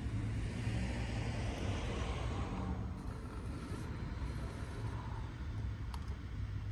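Steady low rumble, with faint rubbing and handling of a flush-mount fuel cap ring being screwed into a motorcycle gas tank during the first few seconds, and one sharp click about six seconds in.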